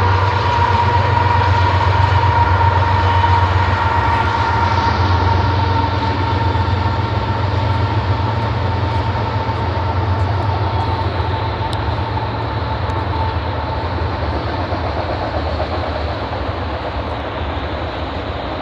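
Union Pacific manifest freight train passing, a steady low rumble with wheel and car noise. A steady high tone rides over it and fades away over the first dozen seconds, and the whole sound slowly grows quieter as the train goes by.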